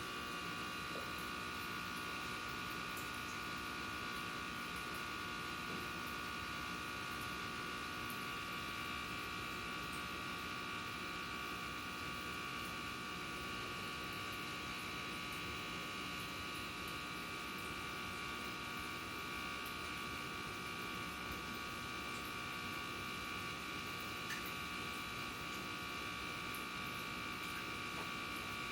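Steady buzzing hum with several high, unwavering tones, unchanged throughout.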